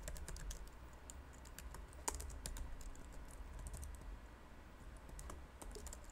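Computer keyboard typing: scattered short runs of key clicks, with one sharper keystroke about two seconds in.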